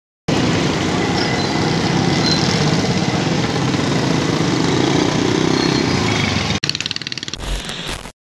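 Busy street traffic: motorcycle and vehicle engines running in a steady din. It cuts off suddenly about six and a half seconds in, giving way to a choppier stretch of traffic noise that stops just before the end.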